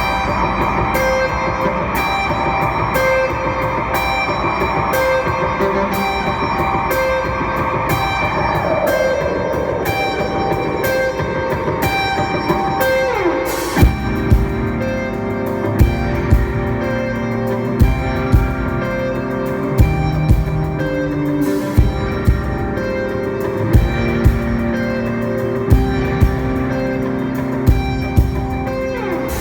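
Guitar-led band music: sustained guitar over a steady high ticking beat, then a sliding drop in pitch about halfway through and full drums coming in with hard hits about once a second.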